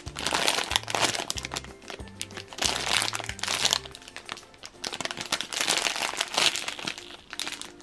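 Clear plastic bag crinkling repeatedly as a jumbo squishy strawberry toy is handled inside it, over background music with a stepping bass line.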